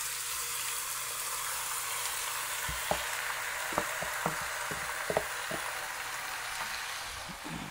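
Seasoned chicken pieces frying in hot oil in a pot, a steady sizzle. From about three seconds in come a handful of light knocks and scrapes as the chicken is scraped out of a plastic container with a spatula.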